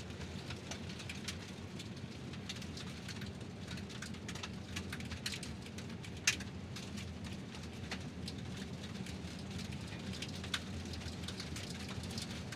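Car tyres rolling over gravel: a steady crunch with a low rumble beneath and scattered sharp pops of stones, one louder pop about six seconds in.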